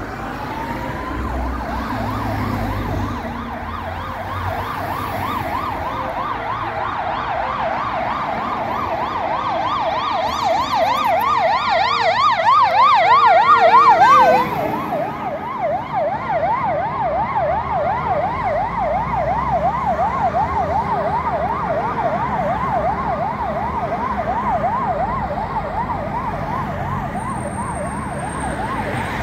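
Fire engine siren in a fast yelp, sweeping up and down several times a second, growing louder as the truck approaches. About 14 seconds in it passes at its loudest, the pitch drops suddenly, and the yelp carries on as it moves away, over road traffic.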